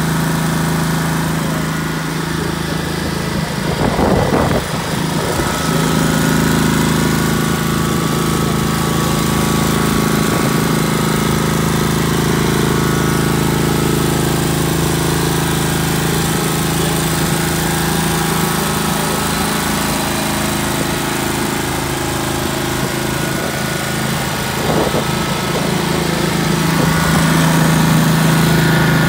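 Hustler Shortcut 1500 mower's air-cooled engine idling steadily, with a brief louder disturbance about four seconds in and running a little louder near the end.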